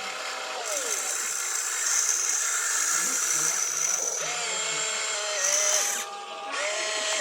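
Small electric motor and gearbox of an RC construction toy whirring, cutting out briefly about four seconds in and again near the end.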